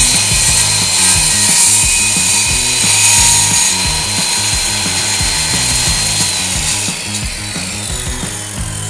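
Power tool cutting fiber-cement siding board, a loud high hiss that swells twice, under background music with a steady beat.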